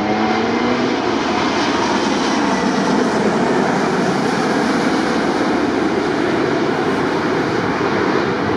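Airbus A380-861 jet airliner with four Engine Alliance GP7200 turbofans, gear down on landing approach, passing low overhead: a loud steady jet roar. A lingering engine tone fades out about a second in.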